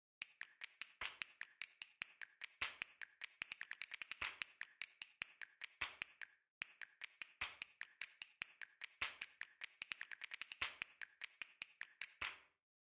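Quiet, rapid sharp clicks and taps, several a second and irregular, with a brief pause about halfway and another near the end.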